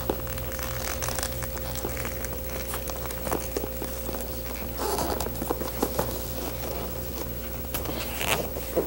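Seat cover being pulled and pressed by hand over the back of a motorcycle seat's metal frame: soft rustling and scattered light clicks, over a steady faint hum.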